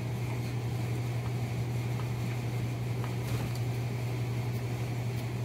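A steady low mechanical hum, with a few faint clicks as a dog eats raw chicken from a steel bowl.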